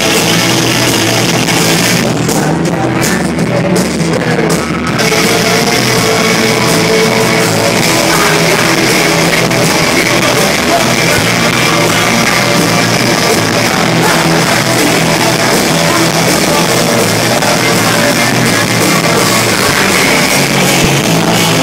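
Rock band playing live and loud: electric guitars, bass and drums with a singer, heard from within the crowd.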